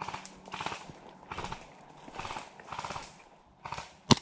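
Footsteps through dry grass and undergrowth at a walking pace, about six steps. Near the end comes a single sharp airsoft pistol shot.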